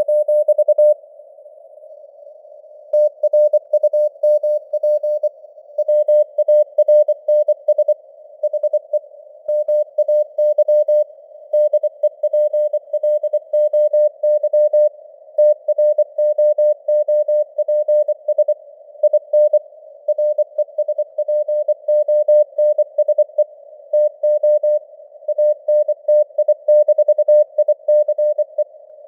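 Morse code at 24 words per minute: a single-pitch tone keyed on and off in dots and dashes over a narrow band of simulated radio hiss, the signal strength fading up and down (QSB). The keying breaks off for about two seconds just after the start, leaving only the hiss.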